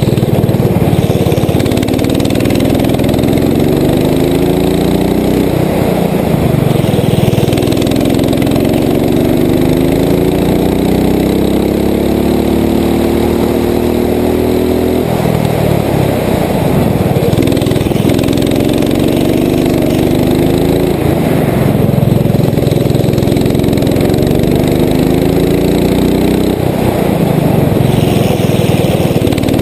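Rental go-kart's engine heard from on board, its pitch climbing as it accelerates down each straight and dropping sharply when the driver lifts for the corners, about five times over, with the longest pull midway through.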